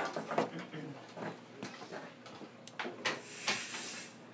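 Scattered light knocks and clicks with some rustling inside a stopped train car, a dozen or so short sounds over a few seconds with no running or motor noise.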